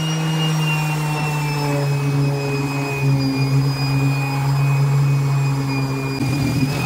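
Electric random orbital sander running steadily, sanding a black walnut leg frame: a constant motor hum with a high whine above it, turning rougher near the end.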